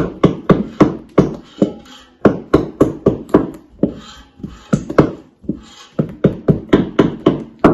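A wooden spoon knocking against a large stainless steel bowl in quick repeated strikes, about three or four a second, each with a short metallic ring, as thick fruit cake batter is beaten and folded by hand.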